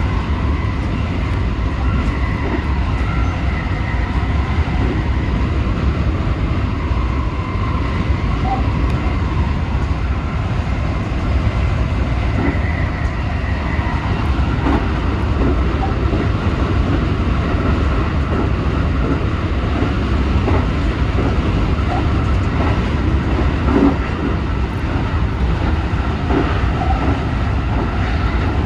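JR West 223 series 2000 subseries electric train running at high speed, heard from inside the driver's cab: a steady low rumble of wheels on rail with a faint steady whine and a few short ticks.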